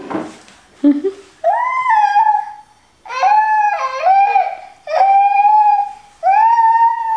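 Baby making long, high-pitched whining cries: four drawn-out calls of about a second each, each scooping up at the start, after a sharp knock at the very beginning.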